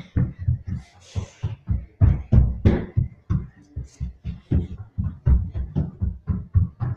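Children's running footsteps thudding on the hallway floor, several heavy steps a second, as they run and slide along it, with a short sliding hiss about a second in.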